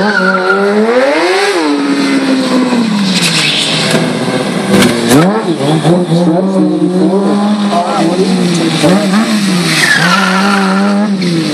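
Sport bike engine revving during stunt riding: the revs climb and fall several times, with a sharp rise about a second in and another climb and drop near the end, and hold steady in between.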